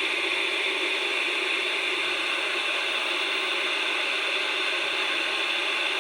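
Steady static hiss through the small speaker of a portable black-and-white CRT TV/AM-FM radio, with no bass, the sound of the set tuned to no station.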